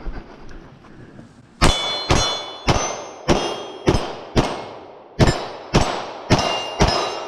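Rapid gunfire at steel targets, about ten shots at roughly two a second, each hit ringing the steel plate with a bright clang, with a brief pause midway through the string.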